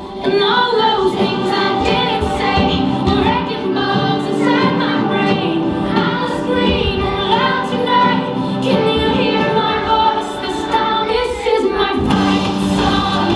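A group of children singing a song together, with a live school band of electric guitar and drums keeping a steady beat.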